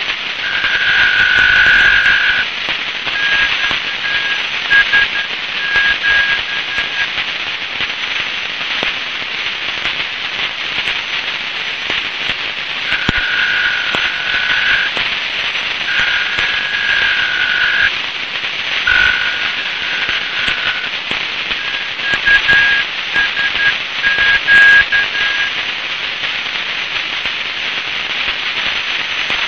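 Shortwave static heard through a Tecsun PL-680 receiver in SSB mode, tuned to 8417.5 kHz and picking up a Chinese maritime coast radio station. Over the steady hiss, pairs of steady tones come in bursts of one to two seconds, broken up by runs of shorter beeps.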